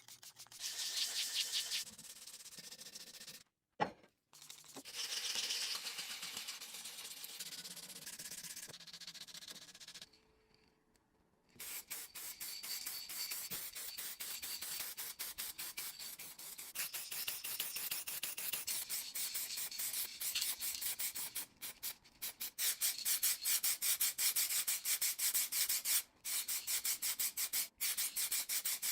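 Abrasive rubbing on a lantern's metal in quick, repeated back-and-forth strokes, in several takes separated by brief silences.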